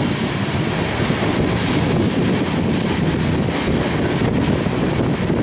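Loaded coal hopper cars rolling past with a steady rumble of steel wheels on rail.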